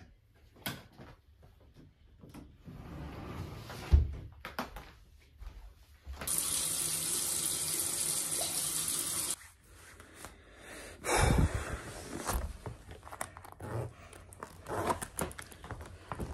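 A bathroom tap runs for about three seconds in the middle, the loudest steady sound. Around it are household handling noises: a sharp thump about four seconds in, and later short knocks and rustles.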